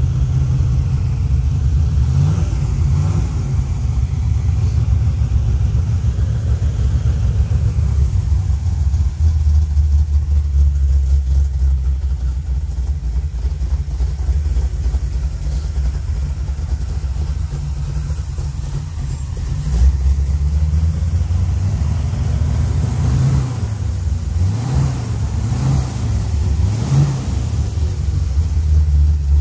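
1951 Chevrolet pickup truck's engine idling steadily, blipped once about two seconds in and three quick revs near the end.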